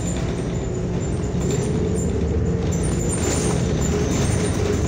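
Inside a New Flyer XN40 natural-gas city bus under way: steady engine and road noise, with the engine note rising slightly about halfway through.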